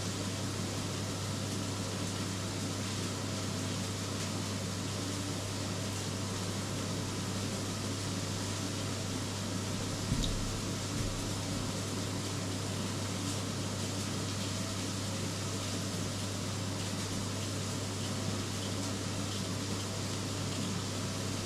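A steady low hum with an even hiss over it, like a running fan, and a single knock about ten seconds in.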